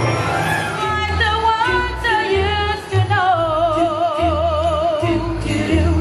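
Mariachi band playing live, with a voice singing a long held note in wide vibrato over guitars and pulsing deep bass notes.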